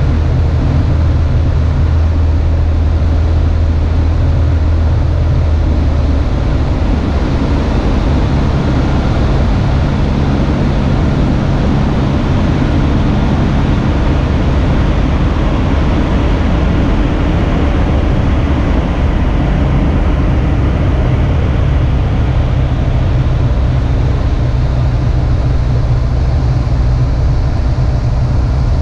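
Cessna 150's Continental O-200 four-cylinder engine and propeller droning steadily in cruise flight, heard from inside the cabin with a wash of airflow noise. The low engine tone shifts slightly about six seconds in.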